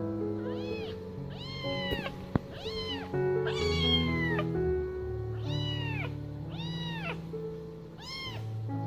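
Kitten meowing repeatedly, about seven short high mews, each rising then falling in pitch, while it is held for botfly larva removal. Background music with sustained notes plays underneath, and there is one sharp click about two and a half seconds in.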